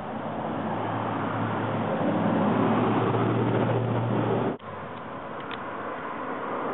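A motor vehicle's engine running: a low steady hum under a rushing noise that swells over the first few seconds. It cuts off abruptly about four and a half seconds in, then the noise resumes more quietly.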